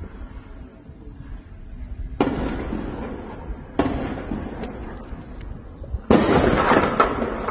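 Three explosions across a city, about two, four and six seconds in, each a sudden boom that rolls on and dies away slowly; the last is the loudest. A few short sharp cracks, like single gunshots, come between them.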